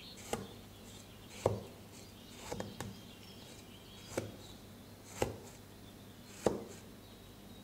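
A kitchen knife cutting through food and knocking on a cutting board: seven short, sharp knocks at uneven intervals, about one a second.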